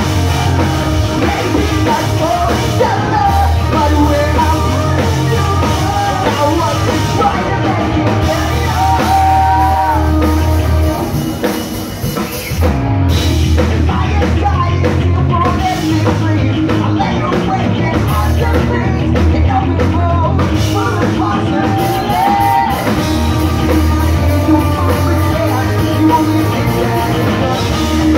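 Pop punk band playing live with electric guitars, bass guitar, drum kit and a lead singer. The band drops out briefly about eleven seconds in, then comes back in full.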